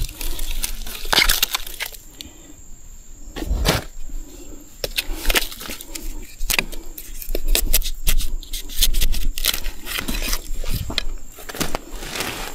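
Irregular snaps, cracks and rustles of dry bamboo being handled while gathering bamboo shoots among dry bamboo litter.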